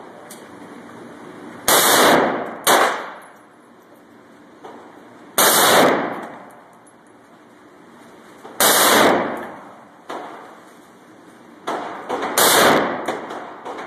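FN SCAR rifle firing on full auto: about five loud shots or very short bursts a few seconds apart, each trailing off in a ringing echo over about a second. Fainter single shots sound between them.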